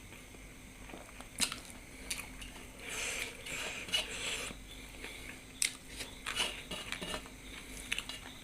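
Close-up eating sounds: chewing, with a few sharp clicks of cutlery against a dish.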